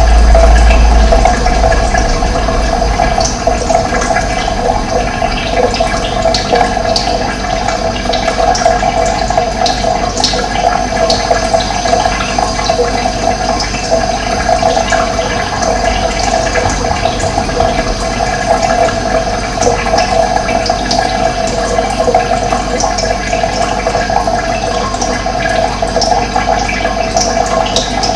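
Water running steadily, with short high chirps scattered through it. A deep rumble fades out about a second in.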